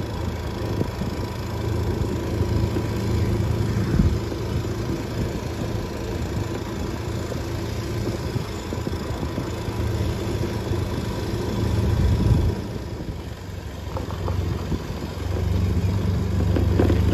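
Small motorcycle engine running at low speed: a steady hum that eases off briefly about twelve seconds in and picks up again near the end.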